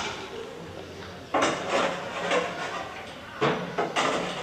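A series of sharp, irregular knocks or clanks, each trailing off over about half a second, with a cluster of about three in the middle and three more near the end.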